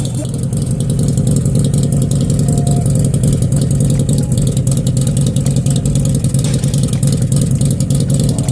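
The 2010 Harley-Davidson Street Glide's V-twin engine running steadily with a dense, even rumble.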